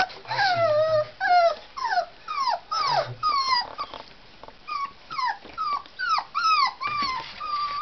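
Tibetan terrier puppies whining and yelping in a rapid run of high-pitched, falling cries, about two a second, in excited play-biting, with a brief low growl near the start and again about three seconds in.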